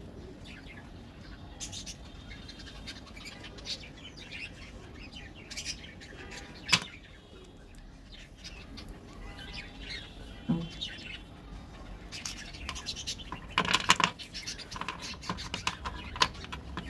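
Squares of Cadbury Dairy Milk milk chocolate being snapped apart and set down on a table by hand: a scatter of small clicks and taps, one sharp snap about seven seconds in, and a busy cluster of taps around fourteen seconds.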